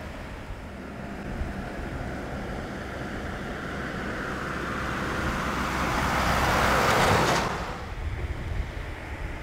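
Wind buffeting the microphone over a low rumble, while the jet noise of a Boeing 737-800's engines swells steadily from about four seconds in as the airliner rolls along the runway. The jet noise becomes the loudest sound, then cuts off abruptly about seven and a half seconds in, leaving the wind.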